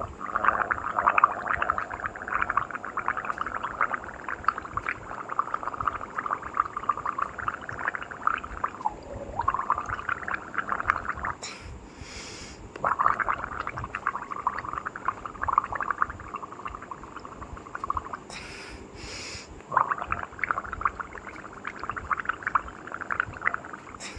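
A person gargling in the throat: long bubbling gargles lasting several seconds each, in three main runs broken by short pauses.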